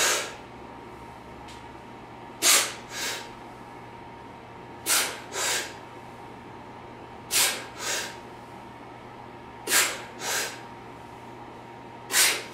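A man's short, forceful breaths as he does kettlebell goblet squats, breathing hard to brace. They come as a quick pair about every two and a half seconds, one pair per squat, five pairs in all.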